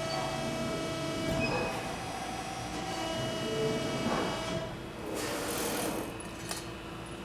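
Cincinnati CBII hydraulic CNC press brake running through a programmed bend cycle: a steady machine hum with tones that come and go, and a burst of hissing noise about five seconds in.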